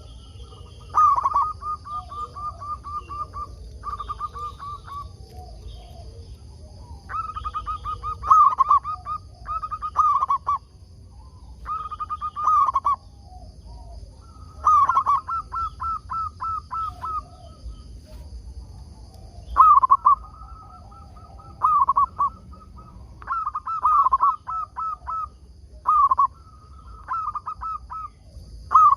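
Zebra dove (perkutut) cooing: repeated phrases of quick, rolling coo notes, each phrase opening with a louder note, coming every one to three seconds. A steady high hiss runs underneath.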